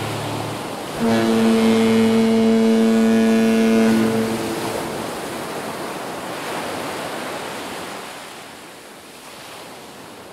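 Surf breaking and washing over shoreline rocks. A steady, low, horn-like tone sounds over it for a few seconds from about a second in, then the surf fades away toward the end.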